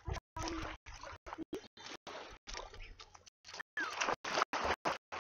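A dog wading in the shallow lake water, splashing and sloshing. The audio breaks up into short fragments and is louder in the second half.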